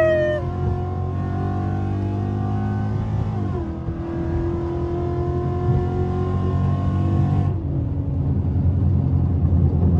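Ford Mustang 5.0 V8, heard from inside the cabin, accelerating hard: the engine note climbs, drops at a gear change about three and a half seconds in, climbs again, then eases off when the throttle is lifted about seven and a half seconds in.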